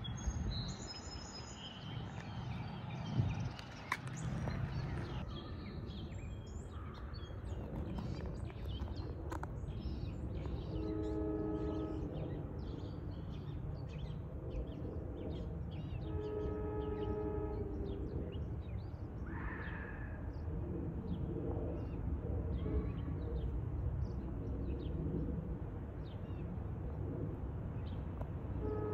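Approaching New Jersey Transit train sounding its multi-tone air horn in the distance: one blast about 11 seconds in, a longer one about 16 seconds in, and another starting at the very end. Birds chirp over a steady low outdoor rumble.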